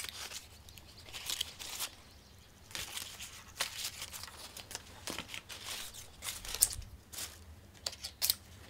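Bamboo-grass leaves (sasa) rustling and crinkling as they are handled, with scattered light clicks and snaps.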